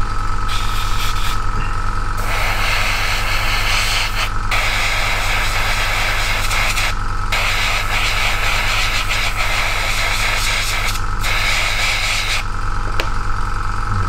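Airbrush compressor running with a steady hum while an airbrush sprays primer in a hissing stream. The spray stops briefly several times and pauses for longer near the end.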